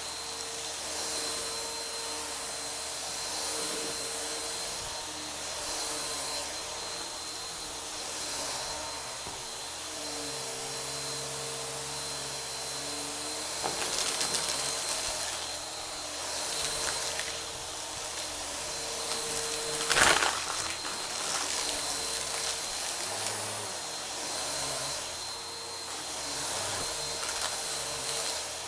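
Vacuum cleaner running with a steady motor whine, its hiss swelling and fading in strokes about every two seconds as it sucks up a crunchy dry debris mix. A single sharp crack about two thirds of the way through is the loudest moment.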